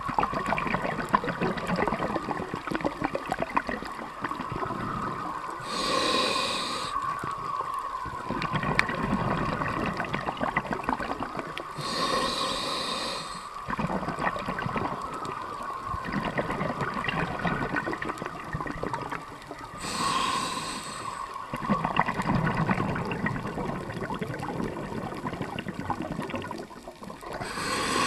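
Scuba diver breathing through a regulator, heard underwater: four short hissing inhalations roughly every six to eight seconds, with bubbling, crackling exhalations in between.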